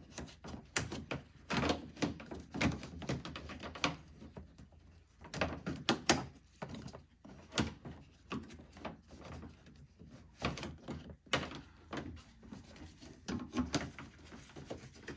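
Plastic under-hood trim piece being handled and pushed into its clips, giving irregular plastic clicks, taps and knocks.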